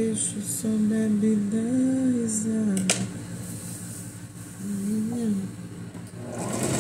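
A woman humming a slow tune in long, wavering phrases, with a single sharp click about three seconds in.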